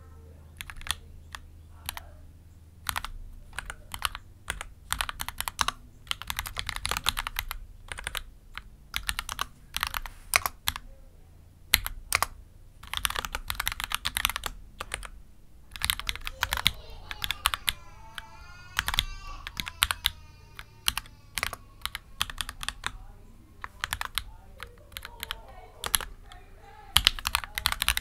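Typing on a mechanical keyboard with Gateron Oil King v2 linear switches: runs of quick keystrokes in bursts, with short pauses between them.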